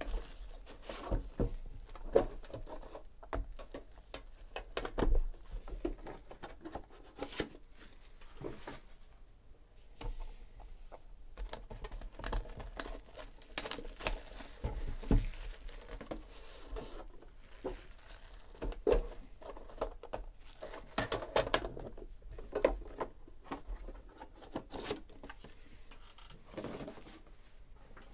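Clear plastic shrink wrap crinkling and tearing as it is peeled off sealed trading-card boxes, in an irregular run of crackles and sharp ticks, with light knocks of the cardboard boxes being handled.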